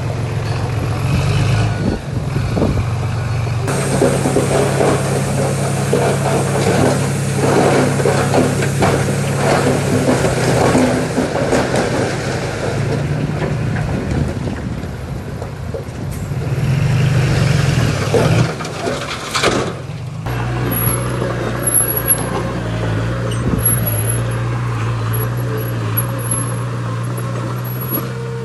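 Diesel engines of heavy earthmoving machinery running steadily, with irregular clatter through the middle. The engine note changes about two-thirds of the way in, and faint short high squeals come near the end.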